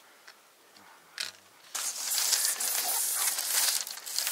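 Thin dry bamboo strips rustling, scraping and clicking against each other and the dry ground as they are handled for weaving a bamboo mat. It is faint at first, then a dense crackling rustle starts a little under halfway through and keeps on.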